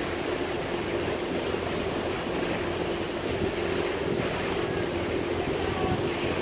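Motorboat under way: a steady engine drone under the rush of water along the hull, with wind buffeting the microphone.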